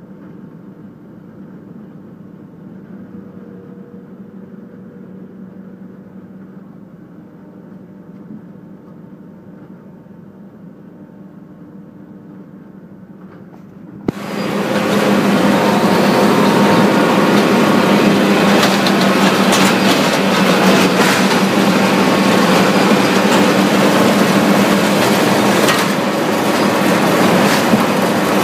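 Cambio 45 mobile log debarker running: a steady machine hum with a constant low tone, then about halfway through a much louder, dense rattling noise with frequent knocks starts suddenly and continues.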